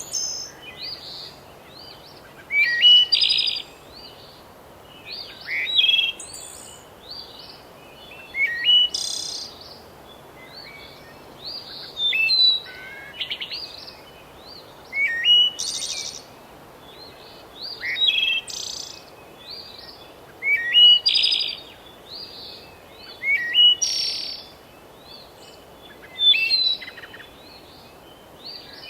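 A songbird singing a short, bright song phrase over and over, about every three seconds.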